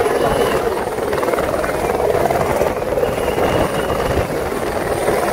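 Light helicopter on the ground with its engine and main rotor running: a steady, loud rotor and engine noise.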